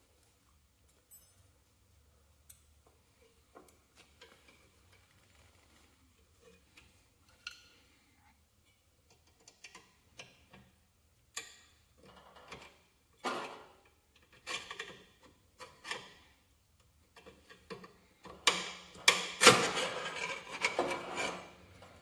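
Hand work on the metal hydraulic coupler fittings of a garden tractor: scattered small metal clicks, scrapes and rubbing as a retaining E-clip is fitted, busier and louder about 18 seconds in.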